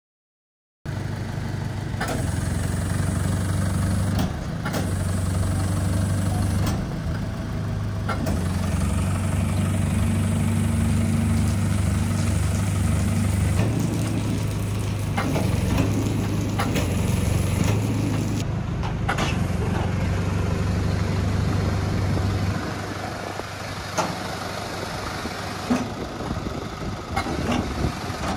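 Garbage packer truck's engine running with its rear tailgate hydraulics working as the hopper body lifts: a steady low hum with a few knocks and clanks, falling to a quieter idle about three-quarters of the way through.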